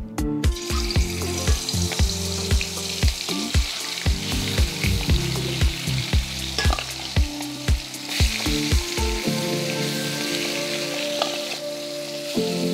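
Kaikha (freshwater garfish) pieces coated in turmeric and salt sizzling loudly as they are slid off a spoon into hot vegetable oil in an aluminium kadai; the sizzle starts about half a second in, as the first pieces hit the oil.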